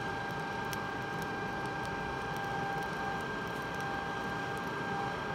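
Electric blower fan on a coal forge running steadily, a constant whine over the rush of air being forced through the fire. A few faint ticks come through now and then.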